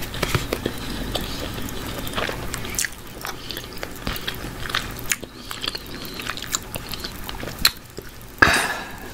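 Squeeze bottle of yellow mustard squeezed out over barbecue chicken drumsticks, close to the microphone: soft wet squelching with many small clicks, and a louder rush of noise near the end.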